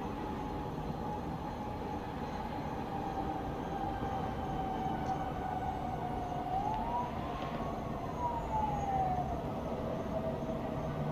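Distant siren wailing slowly over a steady hum of town traffic, its pitch rising and falling once in the second half.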